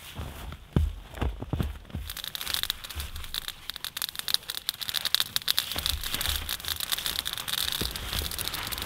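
Balsam fir boughs being handled and spread on the shelter floor, rustling against a crinkly reflective foil sheet. A few soft thumps in the first two seconds, then a dense crackling rustle.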